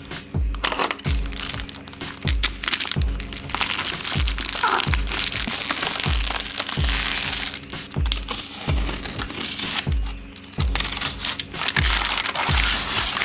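Background music with a steady kick-drum beat.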